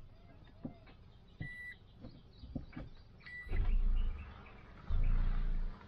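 Repeating electronic warning chime inside a moving car, a short clean beep twice, nearly two seconds apart, with light knocks and rattles. Two spells of loud low rumble come in the second half.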